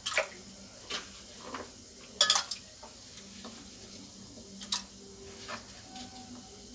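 Raw potato cubes scooped by hand off a wooden chopping board and dropped into a steel bowl of water, giving scattered light knocks and clinks against the bowl, the loudest a little over two seconds in.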